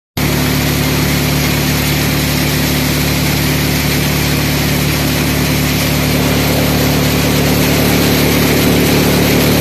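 Four-fan multicrop thresher running steadily while threshing chickpeas: a loud, even machine drone with a steady hum, growing a little louder near the end.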